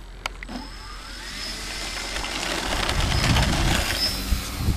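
Radio-controlled P-51D Mustang model airplane throttling up for takeoff from grass: the whine of its motor and propeller rises and gets louder as it rolls away. There is a sharp click just after the start, and wind rumbles on the microphone, growing toward the end.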